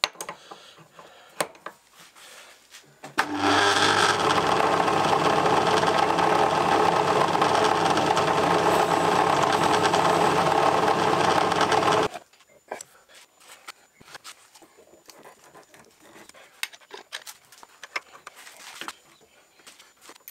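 Metal lathe running, its carbide tool turning down a brass bar; the motor starts abruptly about three seconds in and stops about twelve seconds in. Before and after, light clicks and knocks of tools being handled at the lathe.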